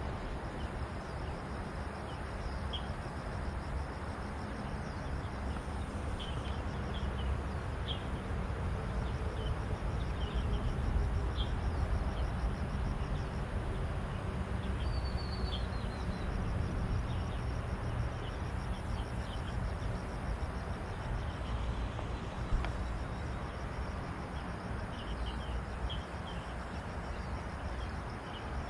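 Riverside ambience: a steady low rumble, with short bird chirps scattered throughout and a faint insect buzz in the first several seconds.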